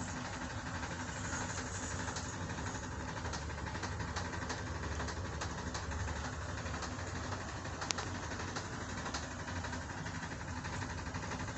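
A cat purring, a steady low rumble, with one faint click partway through.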